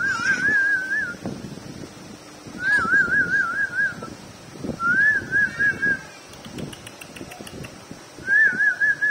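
A high warbling whistle, heard four times as short trilled phrases about a second long, each wavering quickly and evenly around one pitch.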